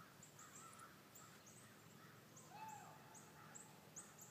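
Faint birds calling: a run of high, thin chirps about two or three a second, with a longer, lower call about halfway through.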